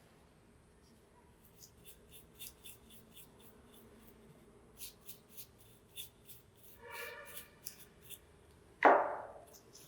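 Hand work on small parts: scattered light clicks and taps, a short squeak about seven seconds in, then a sharp knock near the end that rings briefly as it dies away.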